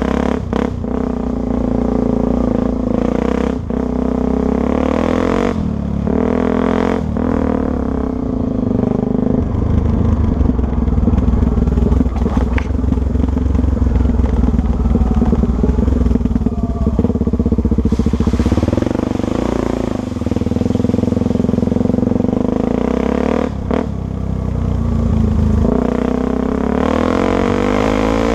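Honda Tornado 250 single-cylinder four-stroke trail bike engine running as the bike is ridden, its note rising and falling with the throttle, steadiest and loudest through the middle. Several short knocks and clatter come through along the way.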